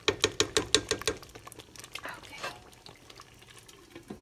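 Thick green lentil stew simmering in a pot: a quick run of sharp wet pops in the first second or so, then quieter bubbling.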